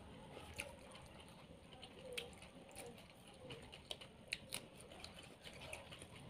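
Faint, scattered small clicks and ticks of eating fish by hand: fingers picking the flesh off the bones on a paper plate.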